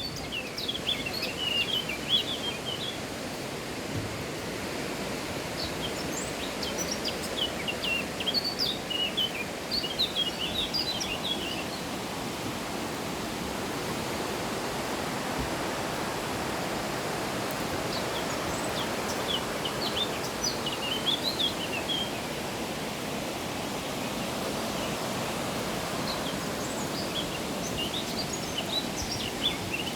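Steady rush of running water, with small birds chirping in short bursts several times over it.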